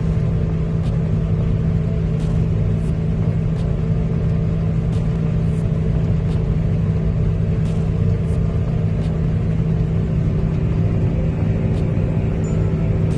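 Heavy engine running at a steady speed, a constant low hum with a rumble underneath and no change in pitch.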